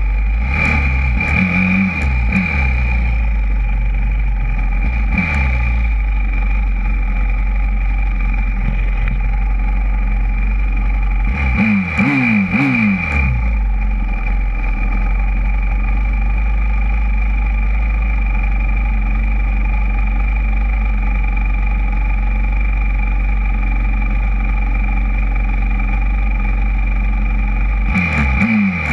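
YCF 125cc four-stroke pit bike engine idling steadily, with short throttle blips that rise and fall quickly: several in the first couple of seconds, one around five seconds in, three or four about twelve seconds in, and more near the end.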